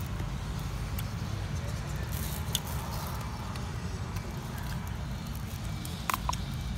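Steady low outdoor rumble, with a few faint light clicks as fingers stir fruit and chili in a plastic tub: a single click about two and a half seconds in and two close together near the end.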